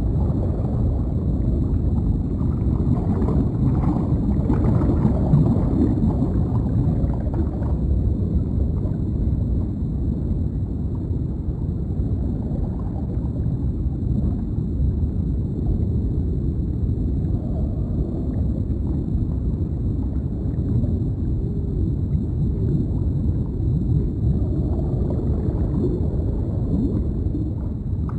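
Deep underwater ambience: a steady, low, muffled rumble of water with gurgling bubbles, swelling a little around four to five seconds in.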